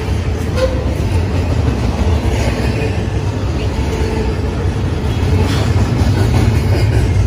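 BNSF double-stack intermodal freight train's well cars rolling past: a steady rumble of steel wheels on rail, with a few light clanks and a faint squeal.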